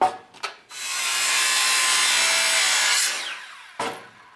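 Handheld circular saw cutting through a piece of steel rebar: about two seconds of loud, gritty, high cutting noise, then the blade spinning down with a falling whine.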